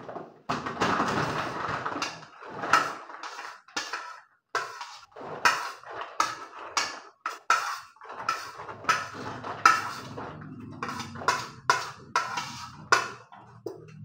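A utensil scraping and knocking against a black plastic takeaway container as leftover rice and chicken are scraped off into a paper bag: a longer scrape at first, then a string of short, sharp scrapes and taps, about one or two a second.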